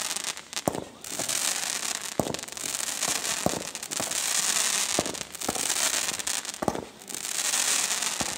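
Fireworks going up: rushes of hiss about a second long, broken by about seven sharp bangs coming every second or so.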